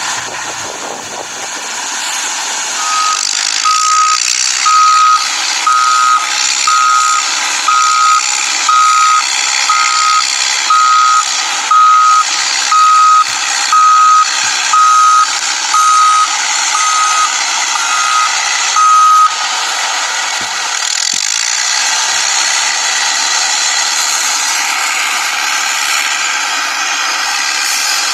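Toy remote-control excavator sounding an electronic reversing-alarm beep about once a second, with the beeping stopping about 19 seconds in. A steady whirr of its motors and gears runs underneath.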